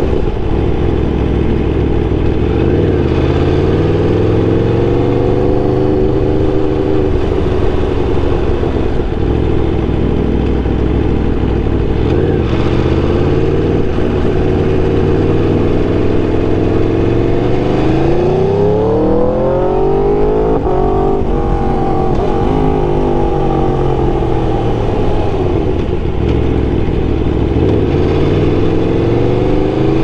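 Aprilia RSV4's V4 engine running through an SC-Project full-system exhaust, heard from on board while riding. The engine pitch mostly drifts gently as the bike cruises, then rises sharply about two-thirds of the way in and falls away again, and climbs once more near the end.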